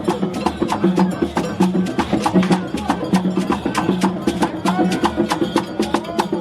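Music driven by percussion: rapid, evenly repeating wood-block clicks over pitched drum tones.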